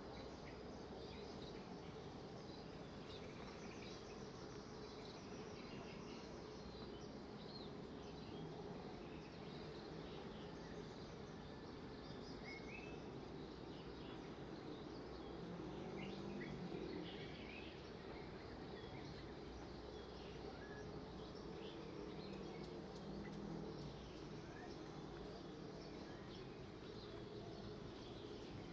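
Outdoor garden ambience: scattered short bird chirps and calls over a steady, even background noise.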